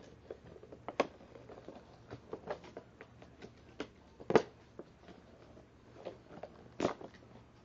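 Hands handling toy packaging: scattered light clicks and taps, with sharper knocks about a second in, midway and near the end.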